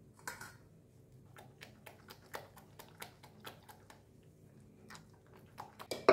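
Silicone spatula scraping and tapping against a fine-mesh stainless steel strainer as thick blended curry sauce is pressed through it, in short irregular clicks a few times a second. Near the end comes one louder metal knock as the strainer is lifted against the steel bowl.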